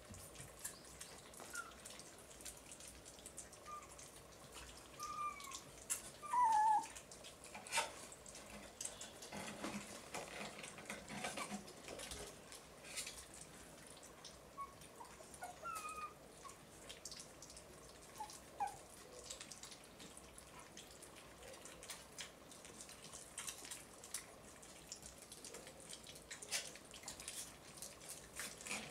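Puppies eating soft food, with wet lapping and smacking clicks and now and then a short high squeak or whimper; the loudest whimper, falling in pitch, comes about six seconds in.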